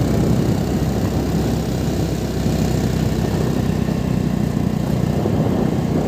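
Wind buffeting the phone microphone while riding a motorcycle, with the engine running steadily underneath.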